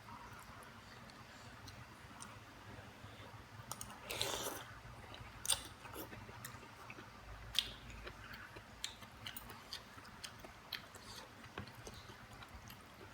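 Close-miked chewing and eating of Indomie noodle soup with rice: wet mouth sounds and scattered sharp clicks, with one longer, louder burst about four seconds in.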